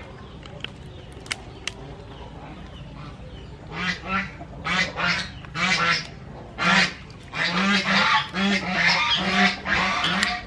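Geese honking over and over: a run of loud calls that starts about four seconds in and comes two or three a second near the end. A few sharp clicks in the first two seconds.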